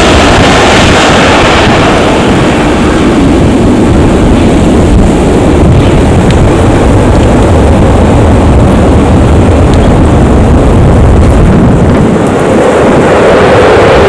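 Airbus A320's two CFM56 jet engines running with a loud, steady roar as the airliner departs, with wind buffeting the microphone.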